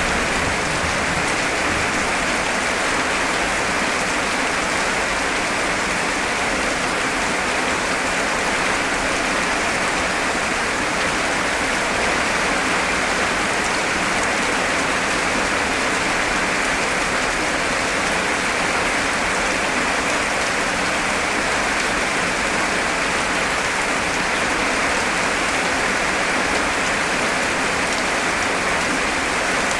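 Heavy rain falling steadily: a dense, even hiss of drops with no breaks or swells.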